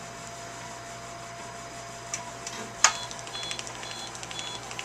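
SmartLipo Triplex laser console running with a steady hum and tones, then short high beeps repeating about twice a second from a little past the middle, as laser energy is fired into the fat layer. A sharp pop about three seconds in, like the popping that the laser makes as it melts fat.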